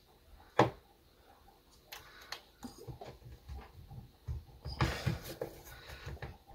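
Small metal tool clicking and scraping against an E-clip and the gear shaft inside a Zebco One Classic spincast reel while prying the clip off, with one sharper click about half a second in and faint scattered ticks after.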